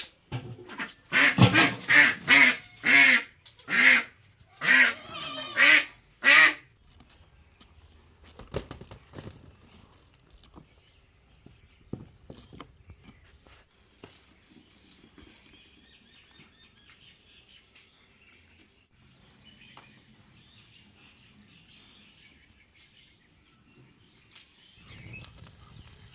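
Domestic duck quacking: about ten loud quacks in quick succession over the first six seconds, then only faint background sounds.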